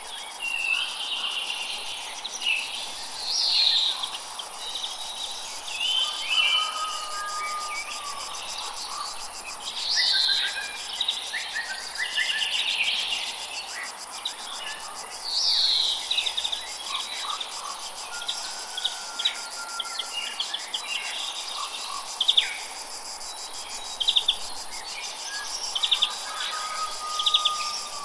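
Jungle ambience: a steady high-pitched insect chorus with several birds calling over it. Descending whistled calls recur every few seconds, with a few held whistles and a run of quick chipping notes near the end.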